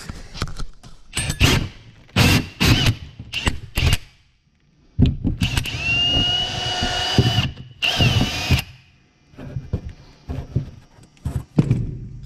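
Power drill boring out a hole for a pipe. It runs in several short trigger bursts, then a steadier run of about two and a half seconds with a high motor whine, then one more short burst.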